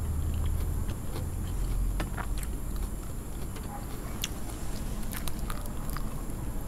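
Low rumble of passing road traffic, heaviest in the first couple of seconds, with scattered light crisp clicks of fried spring rolls and lettuce being handled and bitten.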